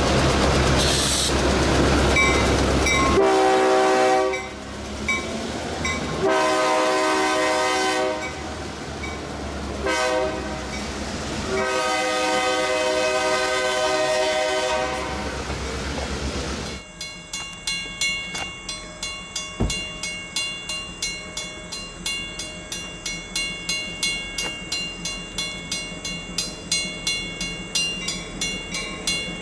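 EMD GP38-2 diesel locomotive passing close by, its 16-cylinder two-stroke engine running loud. Its air horn then sounds four blasts in the long, long, short, long grade-crossing pattern. After a sudden cut, a railroad crossing warning bell rings steadily, about two strokes a second.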